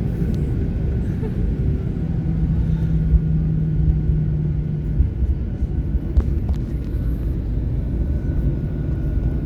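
Airliner cabin noise in flight: a steady low rumble of the engines and airflow, with a thin steady hum above it and a brief steadier drone for a few seconds early on.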